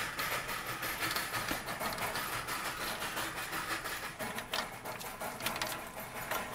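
Fingers rattling and scraping along a wire-mesh cage, a dense run of light metallic clicks, with ducklings peeping a few times.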